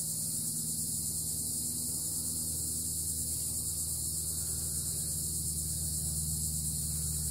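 Steady low electrical hum with a constant high hiss over it.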